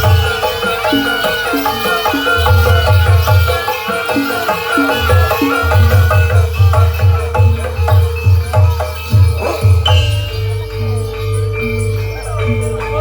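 Traditional Javanese barongan accompaniment music: a fast run of struck, pitched notes over a held tone, with low drum strokes. The drumming drops out about ten seconds in, leaving longer sustained notes.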